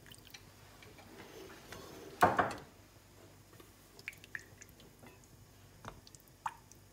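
Faint kitchen sounds from a pan of sauce: one short, louder scrape or splash about two seconds in, then scattered light ticks.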